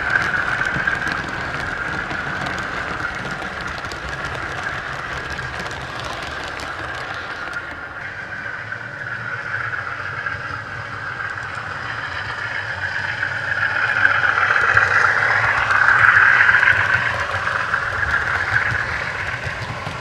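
Model diesel locomotive running on the layout, its sound decoder playing a diesel engine sound through a bass reflex speaker, with the rumble of wheels on the track. The sound swells louder about three-quarters of the way through, as a train passes close by.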